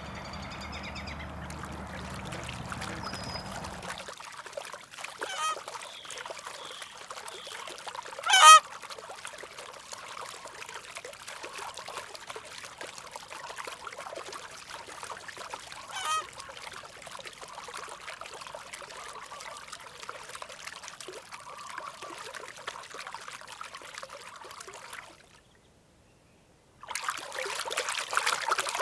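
A waterbird calls three times, short calls about three and eight seconds apart, the middle one loudest. Underneath is a steady trickle of running water. Near the end the sound cuts out for a moment and comes back louder.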